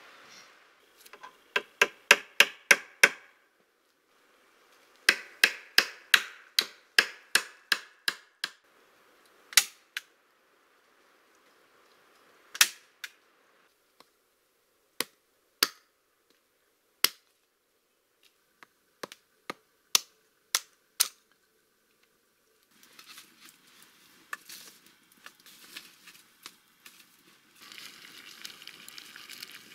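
Sharp wooden knocks of a hatchet splitting firewood, first in quick runs of several strikes, then single blows a second or more apart. From about 23 seconds in, a wood fire crackles and hisses.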